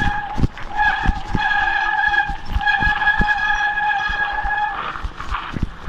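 Mountain bike brakes squealing at one steady pitch in long stretches, breaking off briefly as the brakes are let go and eased back on during a downhill run, with knocks and rattling from the bike over the bumpy dirt trail. The squeal stops near the end.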